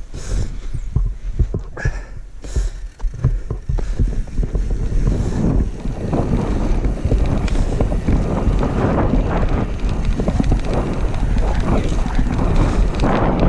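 Mountain bike descending a loose, sandy dirt trail: tyres rolling and crunching over the dirt with knocks from the bike over bumps, and wind buffeting the microphone. The noise is patchy with separate knocks at first, then turns louder and denser about four seconds in.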